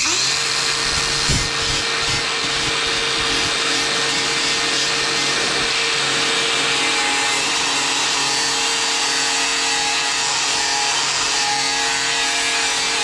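A tool running steadily: a loud, even whoosh with a constant hum underneath and no change in pitch.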